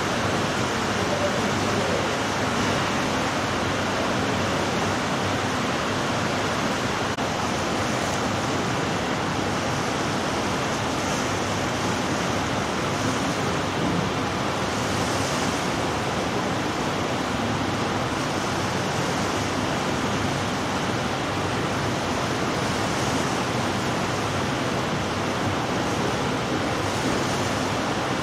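Steady rushing noise of wind and water from the deck of a moving ship, even and unbroken throughout.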